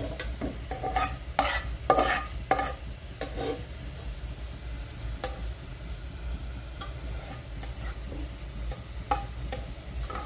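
Steel spatula scraping and knocking against an aluminium pot as fried onions are scooped out of hot ghee and oil, over a faint sizzle. The knocks come in a quick cluster over the first few seconds, then only now and then.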